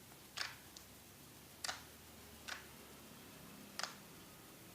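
Clear slime being squeezed and played with by hand, giving five short, sharp clicks and pops spaced unevenly over a few seconds.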